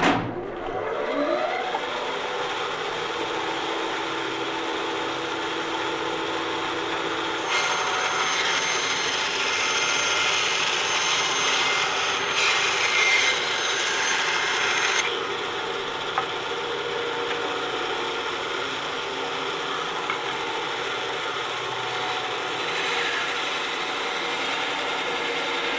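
Electric saw motor starting and spinning up with a rising whine, then running steadily. About a third of the way in it turns louder and harsher for several seconds as it cuts, then settles back to steady running.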